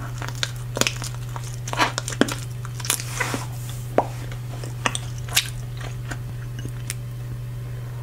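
Bubble gum chewed with the mouth open close to the microphone: irregular smacks and sharp clicks, about one a second, over a steady low hum.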